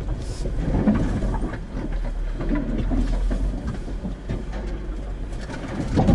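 2022 GMC Terrain AT4 crawling at low speed over a rough, rutted trail: a steady low rumble with irregular knocks and clunks from the suspension and underbody.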